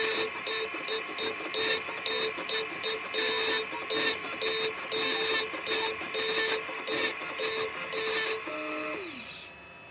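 Computer-controlled engraving machine engraving initials into a pendant, its motors running in a rapid stop-start pattern as the cutter traces the letters. About nine seconds in it finishes and winds down with a falling whine.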